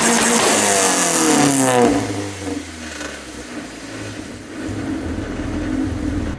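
1991 Honda Civic's four-cylinder engine, freshly cold-started, being revved hard, the revs falling away about two seconds in and the engine settling into a steady idle.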